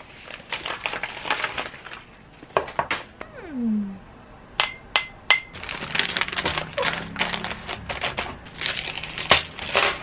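Paper and plastic packaging rustling and crinkling as a parcel is unwrapped by hand, with metal key-chain rings clinking, including three quick bright clinks about halfway through.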